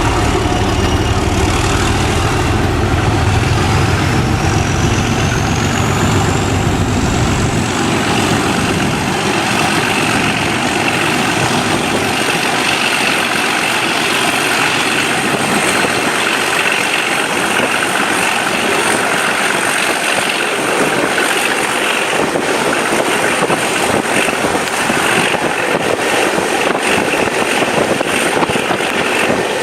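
Class 37 diesel locomotive's English Electric V12 engine working hard. Its turbocharger whistle rises over a few seconds near the start and then holds as a steady high whine. The deep engine rumble falls away about seven seconds in.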